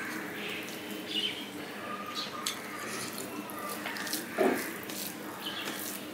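Wet squishing of fingers mixing rice with prawn malai curry on a steel plate, with sharp wet clicks and smacks of eating. A short louder sound comes about four and a half seconds in.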